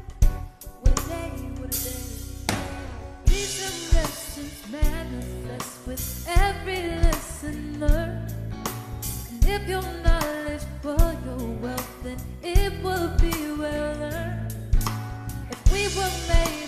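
Live band playing a soul-pop song: a drum kit with sharp snare and kick hits over bass, with a voice singing over the top.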